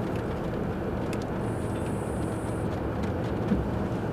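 Steady low rumble of a pickup truck's engine idling, heard from inside the cab while the truck is parked.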